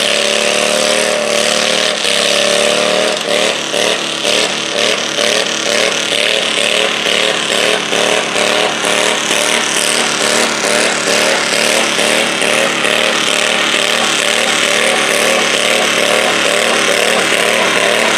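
Stock garden tractor's small engine running hard under load while pulling a weight-transfer sled, its note pulsing quickly and regularly for much of the pull before steadying. The sled's pan scrapes and sprays dirt underneath.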